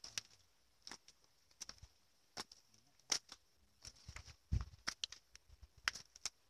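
Footsteps in flip-flops on a rocky, gravelly path: irregular slaps and scrapes about once or twice a second, with a heavier thump about four and a half seconds in. A faint, steady, high-pitched hum runs underneath.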